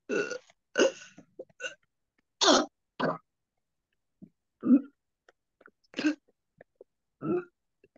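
A run of short coughs and throat-clearing sounds, some burp-like, about eight in all, coming irregularly about a second apart over a video call: a ruqyah patient's bodily reactions to the recitation.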